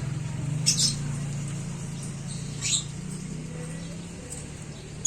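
Pet lovebirds giving short, sharp high chirps, a quick double chirp about a second in and a single one near the middle, over a steady low hum.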